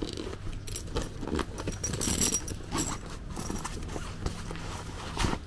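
Handling sounds of a bike bag's shoulder strap being pulled out of its storage compartment: fabric rustling and scattered light clicks, busiest about two seconds in, with a sharp click near the end.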